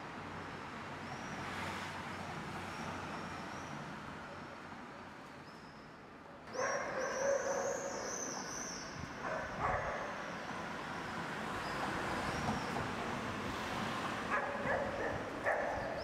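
Street ambience with a steady background hum and repeated high-pitched chirping calls, which get much louder about six and a half seconds in.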